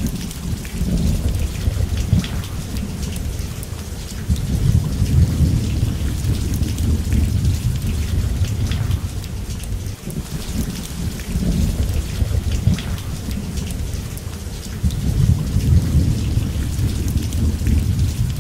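Steady heavy rain with thunder rumbling low, swelling several times: about four seconds in, around twelve seconds, and again about fifteen seconds in.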